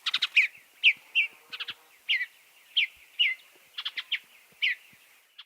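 Bluebird calling: a series of short, clear notes that slur downward, about two a second.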